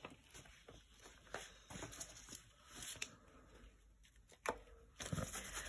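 Faint rustling and light taps as a stencil is laid over a painted paper page and a stiff, cut-down paintbrush dabs acrylic paint through it, with a sharper click about four and a half seconds in.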